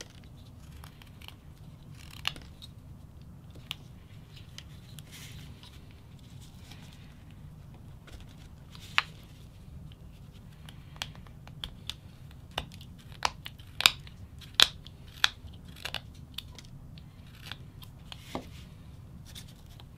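Whittling knife cutting into a small wooden blank, giving sharp clicks and snaps as the blade bites and chips break away. They are sparse at first, then come quickly and loudest for several seconds in the second half.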